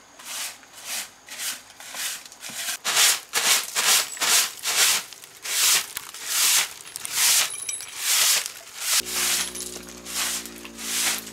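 Rhythmic back-and-forth rasping strokes of a hand tool working a surface, about one to two strokes a second. Steady background music comes in about nine seconds in.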